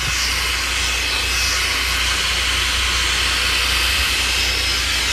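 One Step hair dryer and styler brush running: a steady rush of blown air over a low motor hum.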